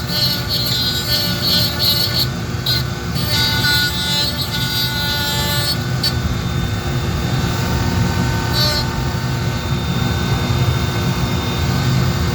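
Rotary tool running at high speed with a steady whine while a bit grinds into wood to texture a carved beard.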